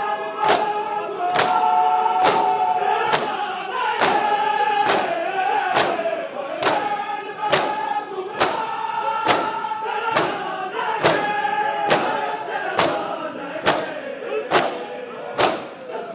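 Large crowd of male mourners chanting a lament in unison while beating their bare chests together (matam), a sharp collective slap about once a second in time with the chant.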